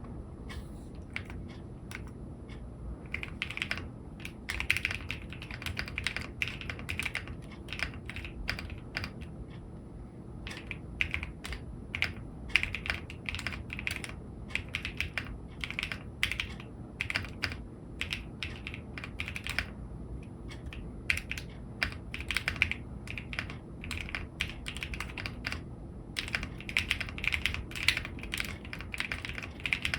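Typing on an AKKO ACR75v2 mechanical keyboard with KAISYA switches: a quick, uneven run of key strokes. The first few seconds are sparse, then the typing thickens into fast bursts with a brief pause about ten seconds in.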